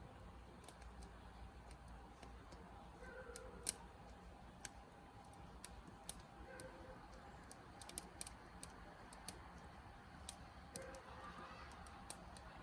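Quiet background with faint, irregular clicks and ticks scattered through it, one sharper click a few seconds in.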